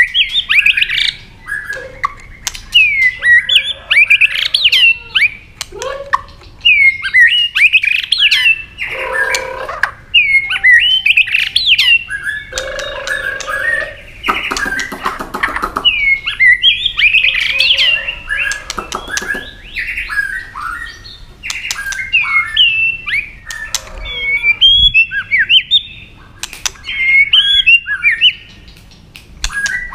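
White-rumped shama singing loud, varied whistled phrases with swooping notes and sharp clicking notes. A harsher, buzzy stretch of calls comes near the middle.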